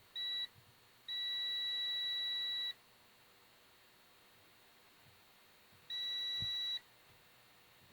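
Multimeter continuity tester beeping three times, a short beep, a long one and a medium one, as the probes touch across the radio's coils. Each beep signals an unbroken path, meaning the coil winding is intact.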